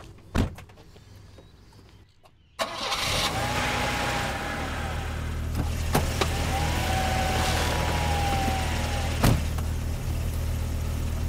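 A single loud thump about half a second in. About two and a half seconds in, a car's engine and road noise come in abruptly and run steadily, heard from inside the moving car, with a couple of knocks.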